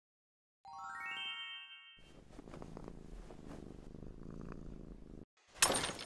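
A short, slightly rising ringing tone, then a cat purring steadily for about three seconds. The purr cuts off abruptly, and a loud sudden sound follows near the end.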